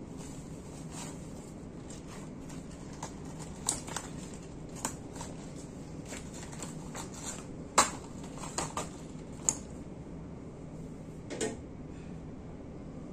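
Pan of water with a glass plate in it heating on a gas stove: a steady low hum under scattered light ticks and clicks, and a louder knock near the end as the pan's glass lid is handled.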